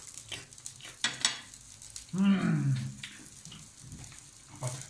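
Two sharp clicks of metal tongs, then a man's low, drawn-out vocal sound, falling in pitch for under a second.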